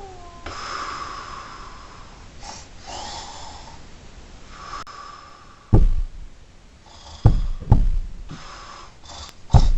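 Heavy, deep thumps: four of them at uneven spacing in the second half, the last two close together. Before them, a few soft breathy, snort-like noises.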